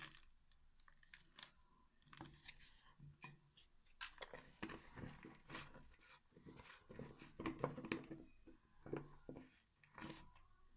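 Soft, wet flour-and-water dough being mixed and squeezed by hand: irregular squelching and sticky clicking, busiest from about four to nine seconds in.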